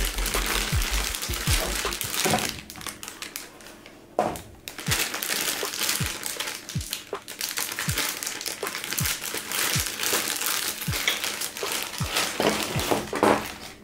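Clear plastic bag crinkling and rustling as it is handled and pulled open, with a quieter spell about three to four seconds in. Soft background music with a steady beat runs underneath.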